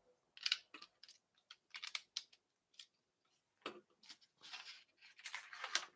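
Faint, irregular plastic clicks and rattles of LEGO pieces being handled and pressed together, from the LEGO Creator Porsche 911 set (10295). There are a few longer scraping rustles after the midpoint as loose parts are shifted on the tabletop.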